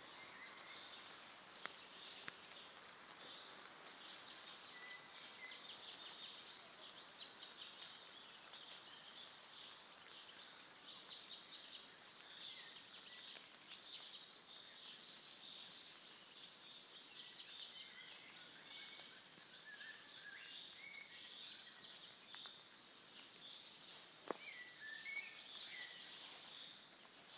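Songbirds singing faintly in a forest: short trilled phrases and chirps every few seconds, over a steady background hiss.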